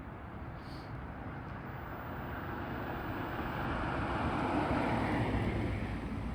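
A vehicle driving past: a steady road-and-engine rush that builds louder, peaks a little past the middle, then fades.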